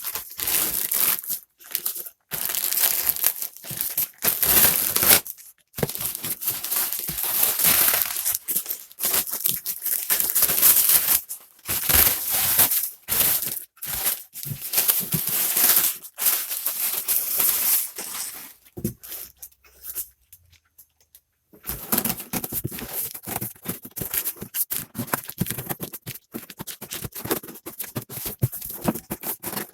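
A taped cardboard box being torn open by hand: packing tape ripping and cardboard and wrapping crinkling in irregular bursts, with a brief pause about two-thirds of the way through.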